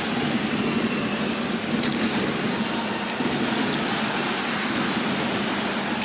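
Steady crowd noise of spectators filling an ice hockey arena during play.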